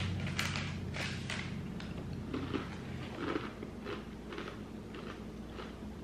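Chewing of crisp Nature Valley White Cheddar Savory Nut Crunch bars, made of roasted peanuts and rice flour: a run of crunches about two a second, growing fainter toward the end.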